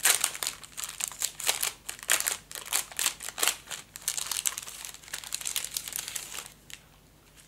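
Sheets of scrapbooking paper being unfolded and handled: a dense run of dry paper rustling and crinkling that dies down about six and a half seconds in.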